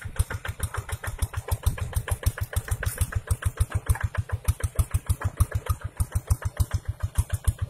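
Single-cylinder diesel engine of a two-wheel hand tractor running under load while it pulls a plough through dry soil: a steady chugging beat of about eight pulses a second.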